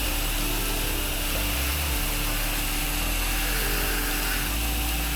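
Pressure washer running steadily, with the hiss of the spray wand putting a downstream chlorine (sodium hypochlorite) mix onto pool cage screens and beams at low pressure.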